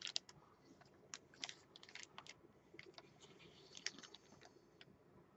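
Faint crinkles and clicks of clear plastic packaging being handled and turned over in the hands, scattered irregularly, the loudest right at the start.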